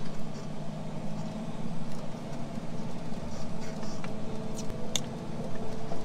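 Semi-truck diesel engine running steadily, heard from inside the cab as the truck moves off, with a couple of light clicks near the end.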